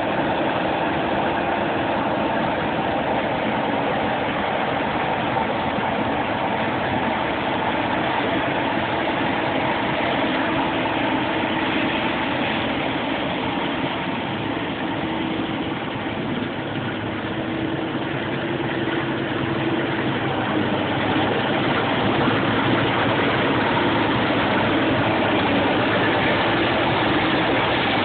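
Claas Lexion 550 combine harvester running steadily while harvesting wheat: its diesel engine and threshing machinery make a continuous drone with a steady hum, easing slightly in the middle and picking up again.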